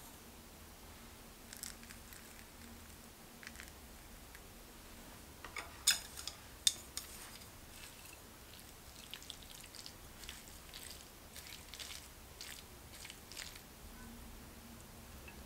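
Chopsticks working saucy noodles in a stainless steel pan: scattered soft clicks and wet rustles, with a few sharper clicks about six seconds in.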